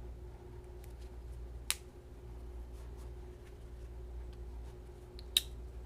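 Two sharp clicks from a folding knife being handled, the first about two seconds in and a louder one near the end, over a steady low hum.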